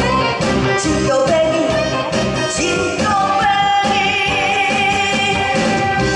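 A woman singing a Korean trot song live through a handheld microphone over amplified backing music, holding one long note through the second half.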